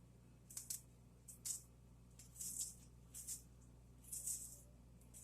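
Salt shaker shaken over the bowl: several short, quiet rattling shakes a second or so apart.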